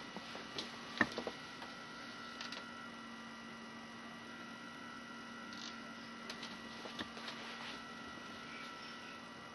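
A faint, low, steady hum, with a few small clicks.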